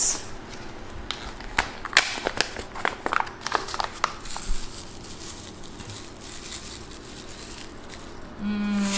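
Crinkling and rustling of a food packet with light clicks and taps, mostly in the first half, as sesame seeds are shaken out over pancakes. A short hummed "mm" comes near the end.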